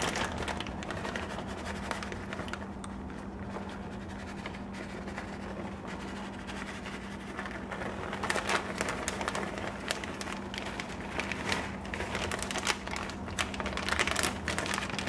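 Plastic bag of shredded cheddar crinkling as the cheese is shaken out over a pan of macaroni, the crackly rustling busier in the second half, over a steady low hum.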